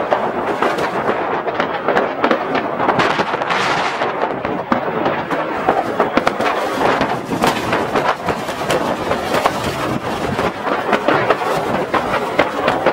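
Many fireworks and firecrackers going off at once: a dense, continuous crackle of pops with frequent sharp bangs among them.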